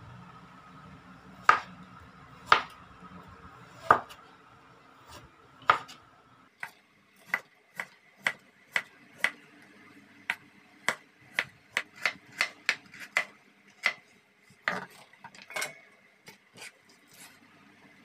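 Kitchen knife chopping a carrot on a wooden cutting board, each stroke a sharp knock of the blade on the board. A few slow, spaced chops, then from about six seconds in a steady run of about two chops a second.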